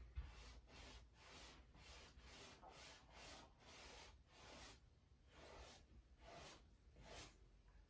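Faint swishes of a paintbrush stroking an oil glaze onto stretched canvas, short strokes repeated back and forth about twice a second, with a low bump right at the start.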